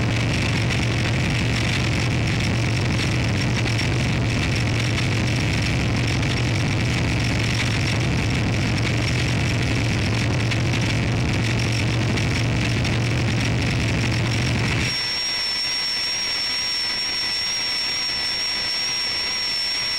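Noisy electronic drone from the Maximal Drone, with a strong low hum under a wash of hiss. About fifteen seconds in it cuts abruptly to a thinner hiss carrying several steady tones and a slightly wavering high whistle-like tone.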